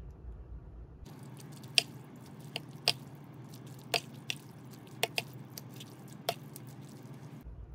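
Tongs tossing sauced spaghetti in a ceramic bowl: wet squishing of the noodles, with about eight sharp clicks as the tongs knock against the bowl.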